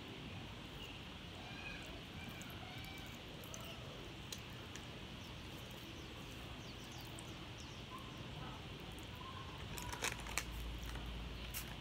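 Quiet outdoor ambience with a few faint bird chirps. About ten seconds in, a short burst of crackling clicks as the candy packet's plastic wrapper is handled.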